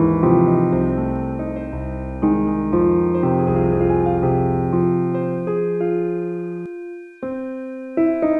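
Slow, relaxing solo piano music: held chords that ring and slowly fade. About seven seconds in the sound thins and briefly drops out, then new chords come in.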